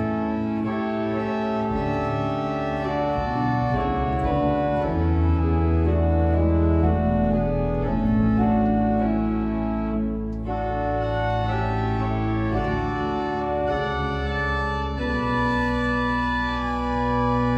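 Cathedral pipe organ playing slow sustained chords over held low bass notes, the chords changing every second or two.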